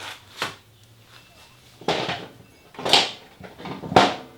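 Hard knocks and clicks, four or five separate strikes a second or so apart, as the throttle-cable distribution box is wrestled out past a frame bracket it keeps catching on.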